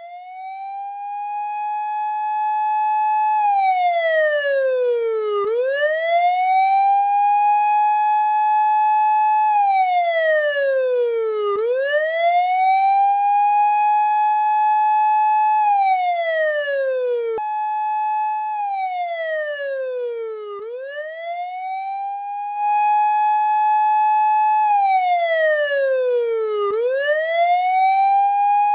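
Police car siren wailing: the pitch rises, holds high for a couple of seconds, then slides down and climbs again, repeating about every six seconds, with one sudden jump back to the high note partway through.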